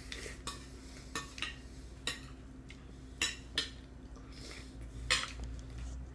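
A toddler's spoon clinking and scraping in a stainless-steel bowl, with about seven short, irregular clinks as she scoops food.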